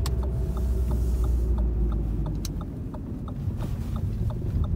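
Lada Vesta Cross with its 1.8-litre engine rolling slowly as it pulls in to park, a low rumble of engine and tyres that eases off after about two seconds. Through it runs a regular light ticking, about three ticks a second, and there are a couple of sharp clicks.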